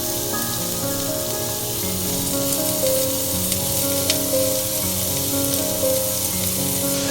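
Food sizzling as it fries in a pan, under soft background music with steady melodic notes; a single light click about four seconds in.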